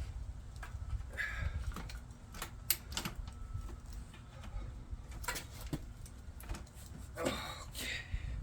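Irregular light clicks and knocks of a bicycle rear wheel, disc rotor and quick-release skewer being handled and fitted into the frame.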